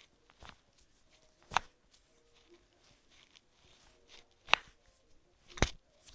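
Chiropractic adjustments: three sharp cracks, the first about a second and a half in, the second about four and a half seconds in, the third near the end.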